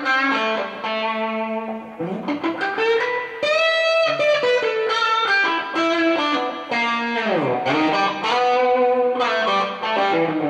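Electric guitar played through a Deluxe preamp pedal, a run of picked notes and chords with a swoop down in pitch and back up about seven seconds in.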